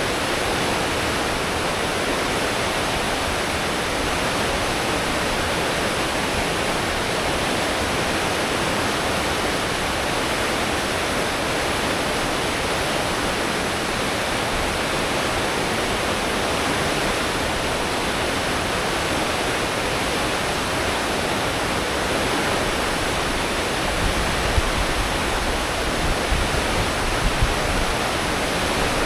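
Steady rushing churn of a cruise ship's wake, water thrown up by the propellers at full speed, with a low rumble underneath. In the last few seconds the low rumble turns louder and uneven.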